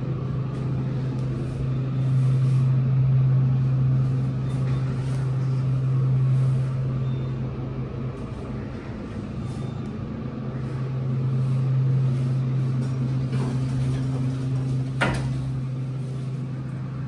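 Steady low mechanical hum around modernised Dover traction elevators as a car travels and its doors open, with one sharp click about fifteen seconds in.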